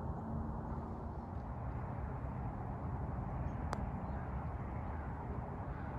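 Steady low wind rumble on the microphone, with one sharp click a little past the middle as a golf club strikes the ball on a short chip shot.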